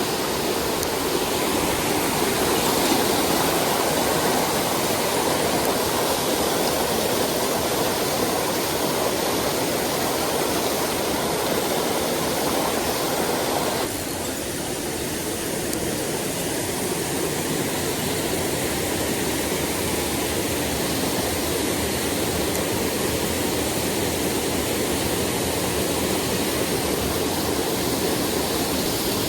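Steady rush of a mountain stream's flowing water. About halfway through the rush suddenly drops a little and changes tone, then runs on evenly.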